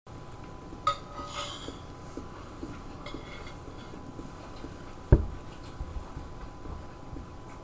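Cutlery on a plate while eating: a sharp ringing clink about a second in and small scattered clicks and scrapes, with a dull heavy thump about five seconds in, the loudest sound.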